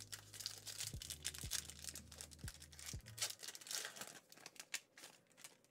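Foil wrapper of a Yu-Gi-Oh Ancient Guardians booster pack crinkling and tearing in the hands as it is opened, a quick run of crisp crackles that thins out near the end.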